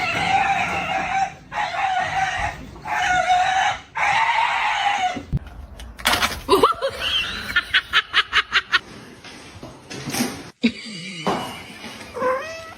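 A domestic animal calling: four long, drawn-out calls of steady pitch, then a quick run of about ten short sounds, about four a second, and a few more short calls near the end.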